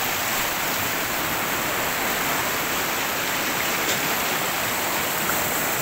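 Swollen river in flood, fast brown water rushing and churning around a fallen log and debris: a steady, even rush of turbulent water.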